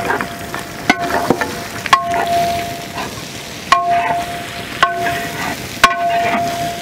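Chopped shallots sizzling in hot oil in a large, wide metal cooking pan while a long metal ladle stirs them. The ladle knocks against the pan five times, and each knock leaves the pan ringing with a clear tone.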